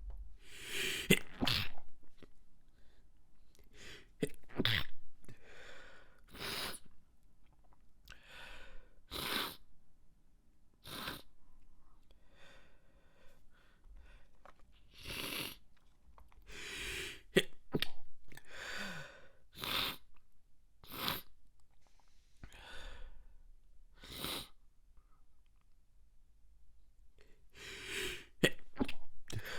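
A fit of stifled, held-in human sneezes: about fifteen short, sharp bursts, one to a few seconds apart, with a quick cluster near the end.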